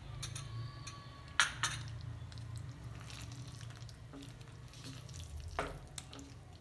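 Wooden spatula stirring thick chicken curry gravy in a non-stick kadai, mixing in cream, with a few sharp knocks of the spatula against the pan about a second and a half in and again near the end, over a low steady hum.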